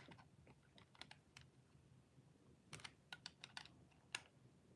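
Faint small clicks of a screwdriver turning the terminal screw of a plastic two-way light switch, tightening a wire into the terminal, with a quick run of clicks about three seconds in.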